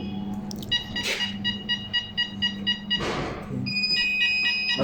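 Burglar-alarm control box's buzzer beeping rapidly and repeatedly, about four high beeps a second, with a short pause about three seconds in. It is the countdown of the panel's delay of about two minutes before the siren goes off.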